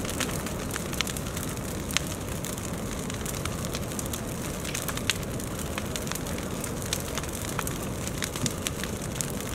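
Large brushwood bonfire burning: a steady rush of flame with frequent sharp, irregular crackles and pops from the burning branches.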